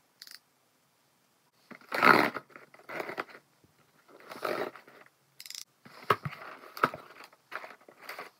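A retractable box cutter slicing through packing tape on a corrugated cardboard box in several scratchy strokes, the loudest about two seconds in. Then the cardboard flaps are pulled open with sharp crackles and knocks.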